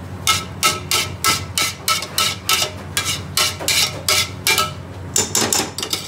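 Long metal ladle scraping and knocking against the sides and bottom of a large aluminium pot while stirring drained basmati rice, about three ringing strokes a second, with a quicker flurry before the stirring stops near the end.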